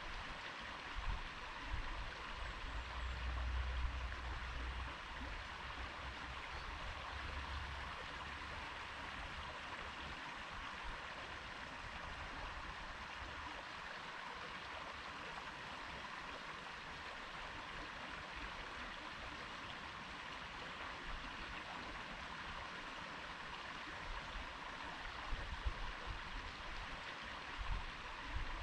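A stream flowing: a steady rush of water, with a low rumble that comes and goes in the first few seconds and again near the end.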